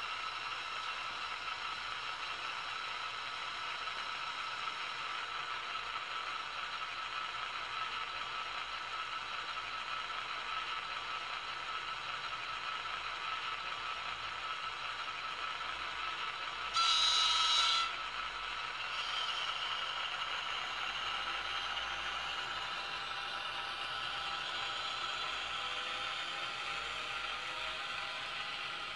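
Model ALP-45DP locomotive in diesel mode. It hums steadily while standing, sounds a horn blast of about a second roughly two-thirds of the way through, then pulls away with its bilevel coaches. As it does, the pitch rises with speed and there is a light mechanical clatter of running gear on the track.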